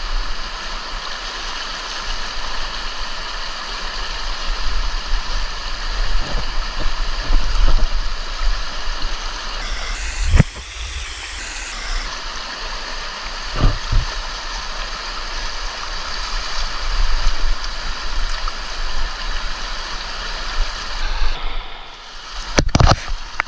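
Stream water rushing and gurgling steadily, with a few short knocks about halfway through and sharp splashing near the end as a fish is netted.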